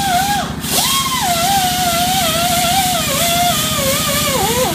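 Air-powered tool running a thread-chasing tap through the engine block's head bolt holes. Its motor whine sags and recovers in pitch as the tap loads up and frees, over a fast, steady low rattle, with a brief drop about half a second in.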